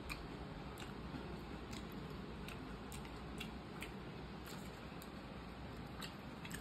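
Eating sounds: faint, short, sharp clicks and smacks about every half second from chewing and the spoon and hand working the food, over steady low room noise.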